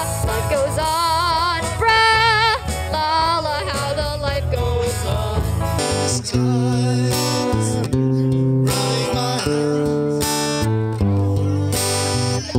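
A female voice sings a held, wavering melody over a live band of guitars and bass. About six seconds in the singing gives way to an acoustic guitar strumming chords.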